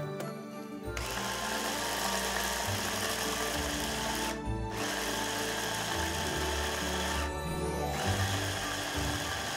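Electric hand blender's chopper attachment grinding chopped nuts into fine meal. The motor starts about a second in and runs in pulses, pausing briefly twice.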